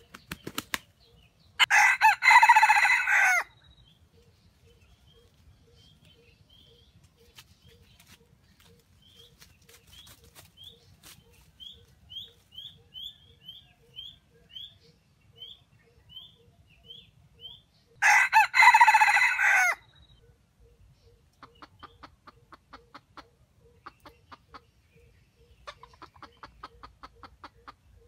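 Red junglefowl rooster flapping its wings briefly, then giving a loud, short crow; a second crow comes about sixteen seconds later. Between the crows there is a run of quick high chirps, and near the end come bouts of rapid clucking.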